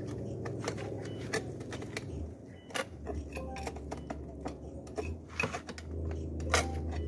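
Irregular sharp metallic clinks and knocks from hand work on the formwork, over a low steady hum that sets in about two seconds in.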